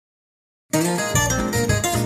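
Silence, then about two-thirds of a second in, a song's instrumental intro starts abruptly: plucked acoustic string instruments over a bass line.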